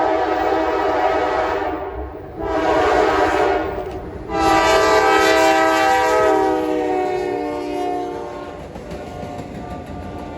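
Locomotive multi-chime air horn sounding three blasts: one that ends about two seconds in, a shorter one, then a long one whose chord drops in pitch as the locomotive passes. Wheel and rail rumble continues as the horn fades near the end.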